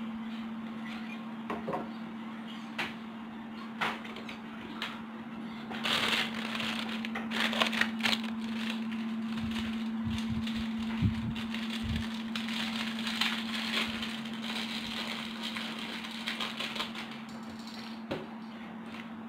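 Scattered clicks, knocks and rustling from handling parts while setting up a TV, over a steady low hum.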